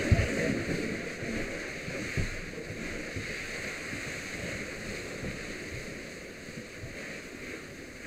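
Fire hose stream flowing, a steady rushing hiss of water that slowly fades, with a few dull knocks near the start and about two seconds in.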